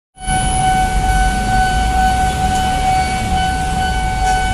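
Railway level-crossing warning alarm sounding one steady high tone without a break, over the low rumble of road traffic crossing the tracks.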